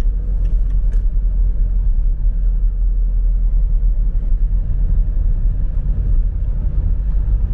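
Steady low rumble of a car on the move: engine and road noise, with a faint click about a second in.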